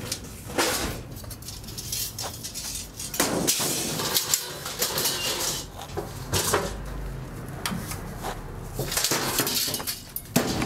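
Scrap iron and old tin cans clanking and rattling as they are handled and loaded into a van, with irregular sharp metal knocks.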